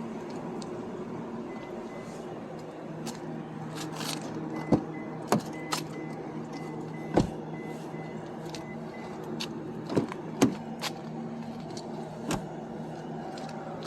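2015 Subaru Impreza doors being opened and shut, with a series of sharp latch clicks and door clunks over a steady low hum. A rapid high beeping chime sounds for several seconds while a door stands open.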